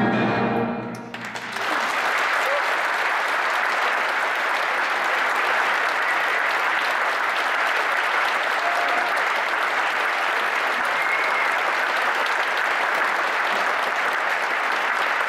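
Orchestra and grand piano end on a held final chord that fades out about a second in, then an audience breaks into steady applause.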